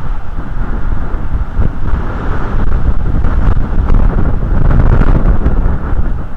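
Wind buffeting an outdoor nest-camera microphone: a loud rumble that rises and falls with the gusts.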